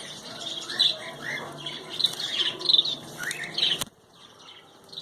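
A flock of small pet birds in an aviary chirping and squawking together in many short, overlapping calls. The calls cut off abruptly with a click about four seconds in, leaving only faint sound.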